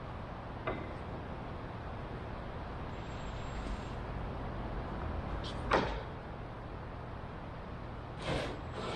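Steady low workshop hum with a few short, light knocks and clicks of handling a wooden block and a cordless drill against the fuselage. The sharpest knock comes a little before six seconds in.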